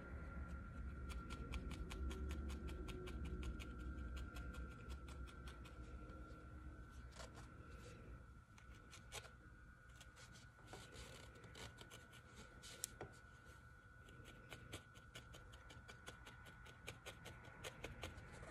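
Felting needle jabbing repeatedly into wool: faint, quick, even pokes, several a second, thinning out about halfway through.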